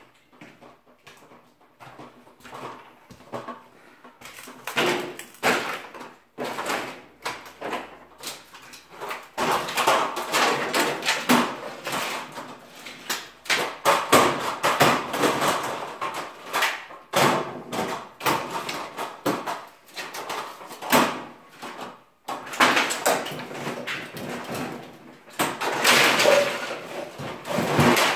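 Irregular knocks, clatter and scraping as demolished wooden ceiling boards and debris are handled and dropped. Quieter for the first few seconds, then busier.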